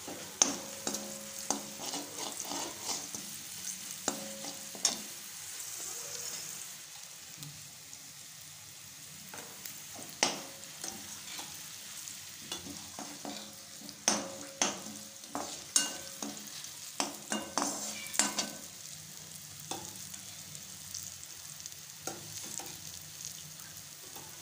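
Slotted metal spatula stirring and scraping garlic, green chilli and whole spices in hot oil in a metal kadhai. Irregular sharp clicks and scrapes of metal on metal come in clusters over a steady sizzle of frying. The tempering is being fried until it turns reddish.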